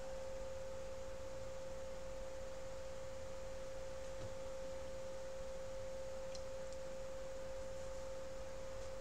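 A steady, unchanging single-pitched hum with a fainter higher tone over it, and two faint ticks about six and a half seconds in.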